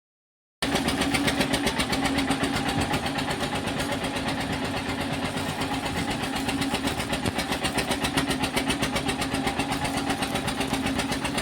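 An engine running steadily at idle, with a fast, even pulsing beat.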